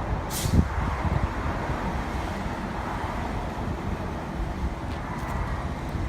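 Steady low rumble of motor traffic, with a short hiss about half a second in.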